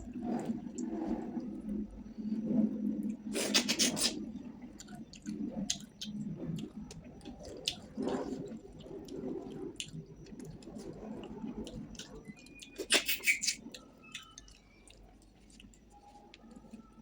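Close-up chewing and wet mouth sounds of a person eating rice and fish curry, with many small lip smacks and clicks. Two louder wet, hissy bursts come about three and a half seconds in and again near thirteen seconds.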